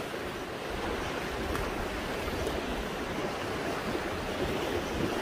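Small waves breaking and washing up a sandy beach: a steady rush of surf.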